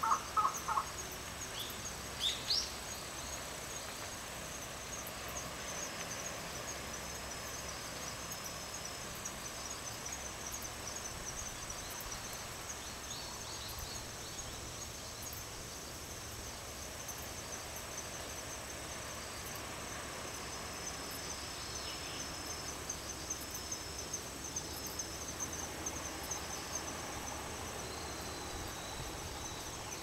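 Insects chirping steadily in a fast, high-pitched trill, with a few short bird calls in the first few seconds and fainter ones later.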